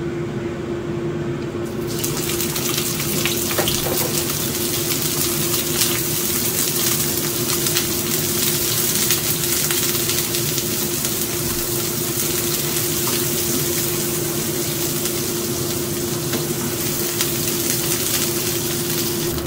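Steamed wet anchovies sizzling in hot oil in a frying pan. The sizzle starts suddenly about two seconds in as the fish go into the oil, then stays steady. A steady low hum runs underneath.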